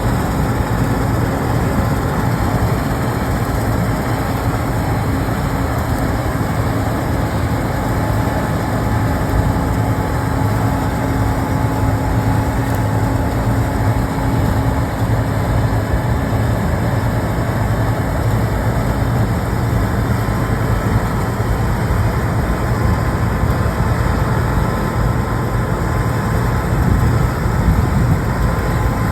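John Deere 8820 combine running steadily while harvesting at slow ground speed, with its threshing cylinder at about 800 rpm, giving a continuous low engine and machinery drone.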